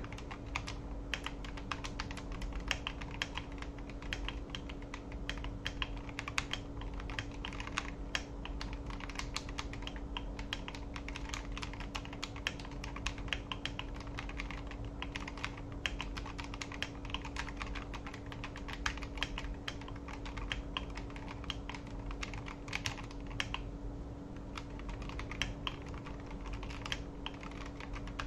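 Continuous typing on a custom mechanical keyboard with Akko Matcha Green switches and thick Akko Carbon Retro PBT double-shot ASA-profile keycaps: a dense, irregular stream of keystroke clacks. A faint steady hum sits underneath.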